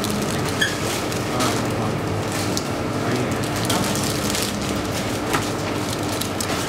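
Convenience store background sound: a steady hum and hiss with a few light clicks and rustles scattered through it.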